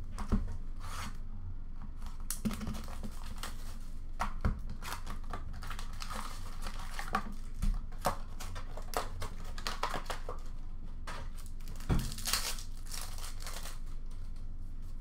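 Upper Deck SP Authentic hockey card packs being torn open, the wrappers crinkling, with the cards handled and a few sharp knocks on the counter.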